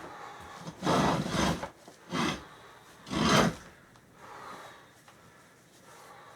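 Rough scraping and rubbing strokes of the chair's parts being worked by hand: a long stroke about a second in, two shorter, louder ones a second apart after it, then fainter scraping.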